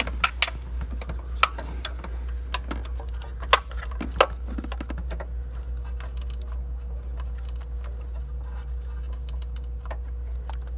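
Ratchet wrench tightening the lower 13 mm intake plenum bolts on a V6: scattered, irregular metallic clicks and clinks, a couple of them louder about three and a half and four seconds in, over a steady low hum.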